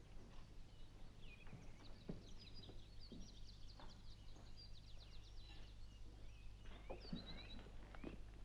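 Faint birdsong of quick chirps and short trills, over a low steady hum, with a few soft knocks.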